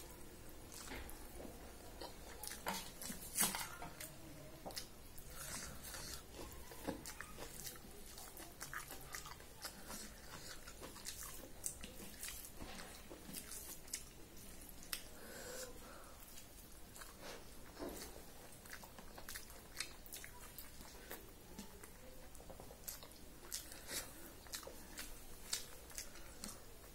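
A person chewing mouthfuls of rice and curry eaten by hand: irregular mouth smacks and clicks throughout.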